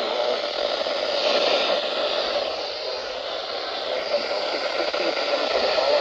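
Steady static hiss from a RadioShack handheld weather radio's speaker, with no voice on the weather channel.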